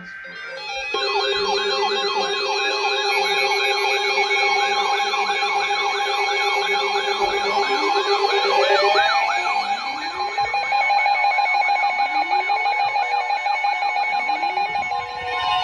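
Several electronic sirens sounding together: fast yelping tones wavering a few times a second over steady alarm tones. From about halfway through, slower wails rising in pitch repeat every couple of seconds.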